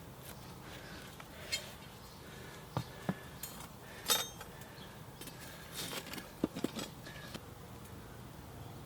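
Scattered light metal clinks and taps, about ten in all and bunched together near two-thirds of the way in: short cut lengths of steel rebar being set in place and handled.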